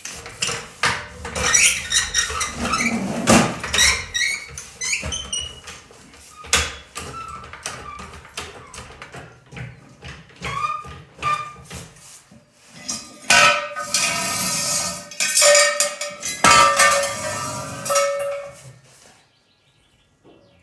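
Steel floor jack and jack stands clanking and rattling as a pickup is let down off the stands: repeated metal knocks, with a longer stretch of metal scraping and squeaking in the second half.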